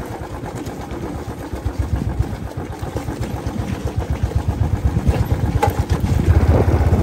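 Royal Enfield Bullet motorcycle's single-cylinder engine running at low speed on a rough gravel track, a steady rapid thumping that grows louder toward the end.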